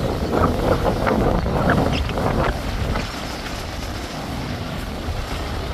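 Large motor yacht passing at speed, a steady low engine drone under gusts of wind buffeting the microphone; the wind noise eases about halfway through.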